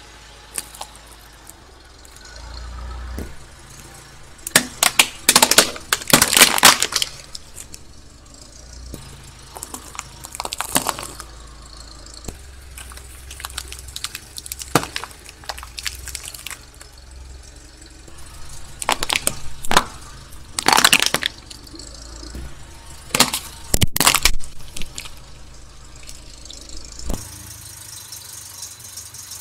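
A car tyre rolling slowly over small objects such as a flocked plastic toy dog and a packet of sandwich cookies, crushing them: about five bursts of crunching and cracking a few seconds apart, over the low rumble of the car's engine.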